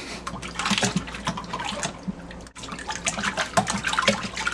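Water splashing in a plastic infant bathtub as a baby kicks his legs, in quick irregular splashes and slaps, with a brief break about halfway through.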